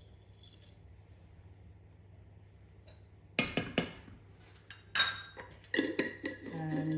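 Kitchen utensils and containers clinking while spices are handled: a quiet start, then three sharp clinks in quick succession about halfway through, and a few more near the end.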